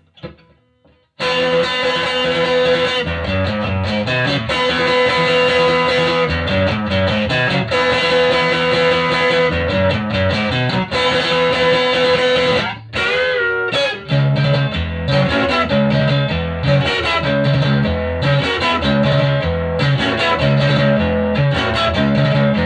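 Electric guitar played through a 1965 WEM Control ER15 valve amplifier head. The playing starts about a second in with ringing chords over a held note, breaks off briefly about halfway, then goes into a repeating riff.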